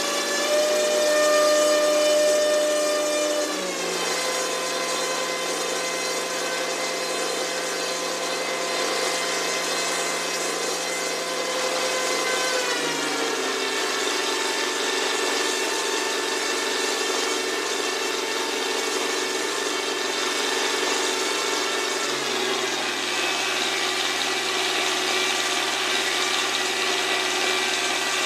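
T-28 Trojan's Wright Cyclone radial aircraft engine running steadily, its pitch stepping down three times as the engine speed is brought lower.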